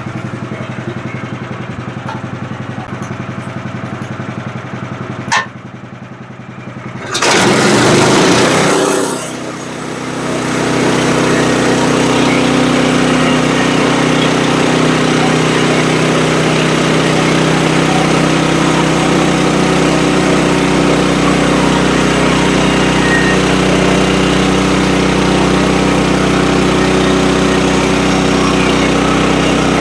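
Small gas engine of a bandsaw sawmill, first idling with a sharp click about five seconds in, then throttled up about seven seconds in and running steadily at high speed for the rest, as it would while the blade cuts through the log.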